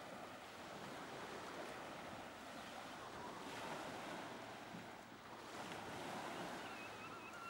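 Faint wash of sea waves, a soft even rush that swells and fades slowly.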